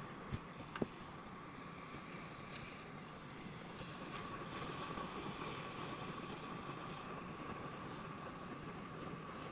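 Hot air rework station blowing steadily onto a motherboard, a steady airy hiss with a faint whine, heating a DC-to-DC converter IC to desolder it from a scrap board. Two faint clicks come in the first second.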